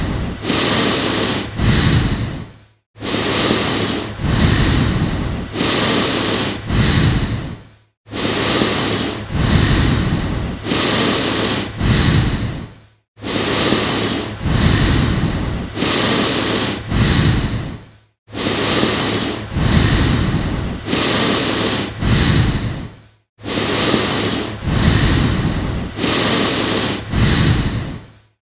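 A person breathing hard and fast: heavy breaths about one a second, in runs of four or so, each run broken by a brief silent gap about every five seconds.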